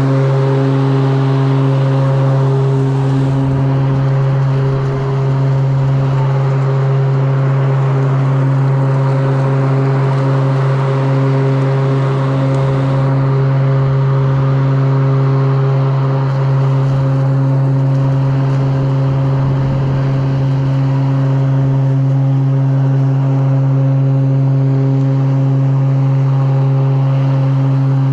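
Battery-powered stand-on lawn mower running while cutting grass: its electric motors make a steady hum with several even tones and no changes.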